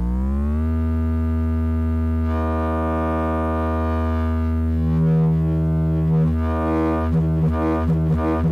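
Home Bake Instruments HARMONICS Eurorack drone synthesizer, with three wavetable oscillators, sounding a sustained harmonic drone as its knobs are turned. The pitch glides up in the first half-second and then holds. About two seconds in the tone brightens, and from about five seconds it starts to pulse, settling into a steady throb of a few pulses a second near the end.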